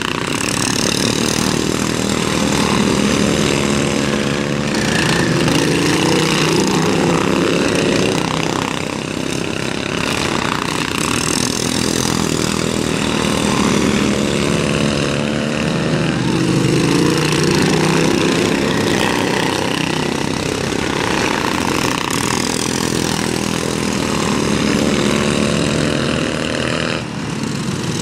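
Several Briggs & Stratton-powered racing lawn mowers running hard on a dirt track, engine pitch rising and falling as they throttle up and ease off through the turns. The sound swells and fades every few seconds as the mowers pass.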